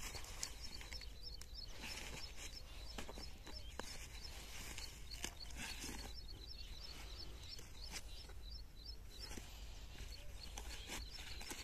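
A bird chirping in quick, repeated high notes throughout, over the faint crinkle of a woven plastic sack full of onions being twisted and tied shut.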